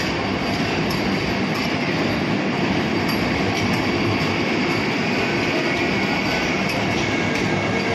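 Vande Bharat electric multiple-unit train rolling past, a steady rumble of wheels on rail with a faint high steady whine over it.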